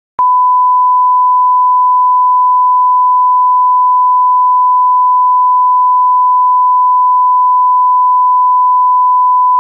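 Continuous electronic test tone: one steady, loud, high pure pitch that cuts in abruptly with a click just after the start and holds unchanged.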